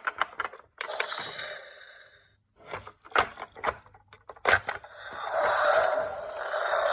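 Handling of a plastic toy tank: a scatter of sharp clicks and knocks. From about five seconds in, a steady rushing noise swells up and holds.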